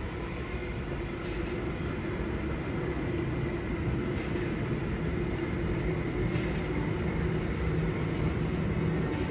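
Sydney Trains electric passenger train running through the station: a steady rumble of wheels on rails with a motor hum, growing slightly louder towards the end.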